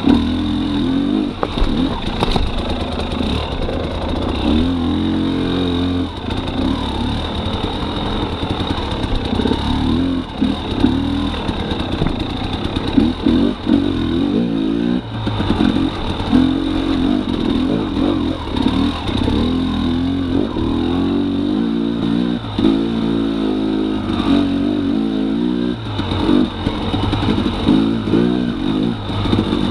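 2018 Husqvarna TX300's two-stroke single-cylinder engine revving up and down while the dirt bike is ridden over rough ground, with scattered clattering knocks.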